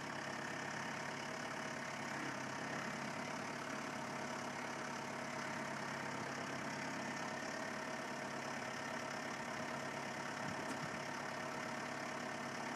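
New Holland Boomer 3045 compact tractor's diesel engine running steadily at an even speed.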